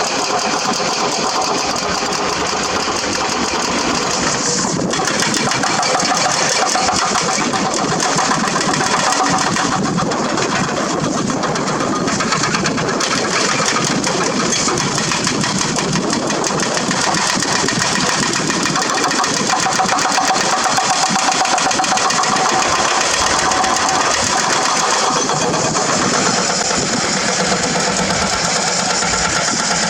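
A hydraulic crawler excavator's diesel engine running steadily.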